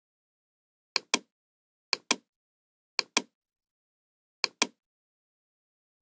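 Computer mouse clicks: four pairs of sharp clicks about a second apart, with silence between.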